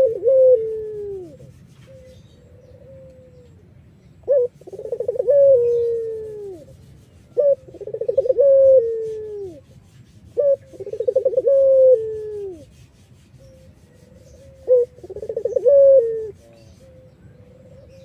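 White puter irak dove cooing repeatedly, a phrase every three to four seconds. Each phrase opens with a short sharp note and runs into a long, trembling coo that falls in pitch at the end, with softer coos in the gaps.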